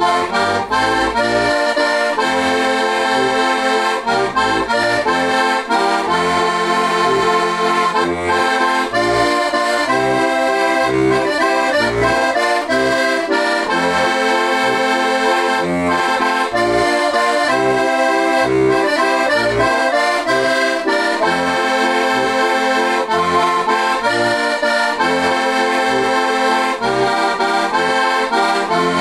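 Krahulec heligónka, a four-voice C–F diatonic button accordion with tipo a mano brass reeds, playing a lively folk tune. A melody on the treble buttons runs over a steady pulse of bass notes and chords.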